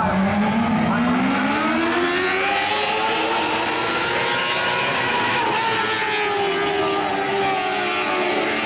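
Engines of several winged dirt sprint cars running together in a pack. The engine note rises steadily over the first few seconds as they accelerate, then eases back down.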